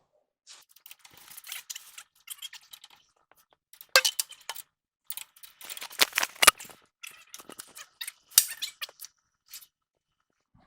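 Irregular clinks and clatter of metal hand tools being handled, with a few louder knocks scattered among lighter rattles.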